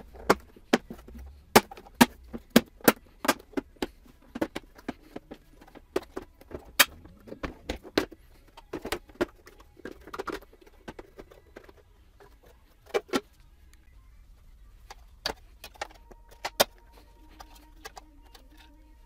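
Plastic clips clicking and snapping as the clear lens of a BMW E46 halogen headlight is unclipped from its housing and the headlight insert is handled. Many sharp clicks come in quick succession for the first ten seconds or so, then fewer, in small groups.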